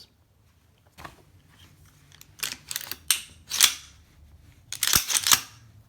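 Metallic clicks and short sliding clacks of an AR-style pistol being unloaded: the magazine released and the charging handle worked to clear the chamber. There is a single click about a second in, sliding rattles around the middle and a sharp clack near the end.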